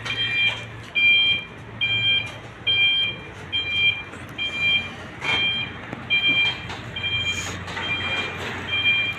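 Forklift reversing alarm beeping steadily, a two-tone beep about every 0.8 seconds, over a low engine hum, with a couple of short knocks.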